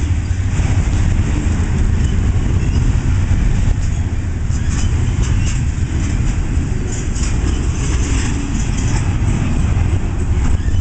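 BNSF intermodal freight train's double-stack container well cars passing close by: a steady rumble of steel wheels on the rails, with scattered short high clicks and rattles.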